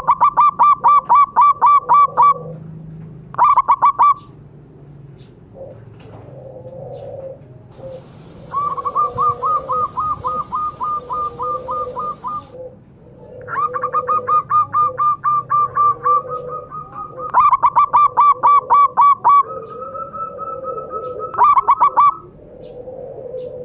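Zebra dove (perkutut) calling: six bursts of rapid, evenly spaced high cooing notes, about six a second, the longest lasting about four seconds. A softer, lower warble runs beneath the bursts.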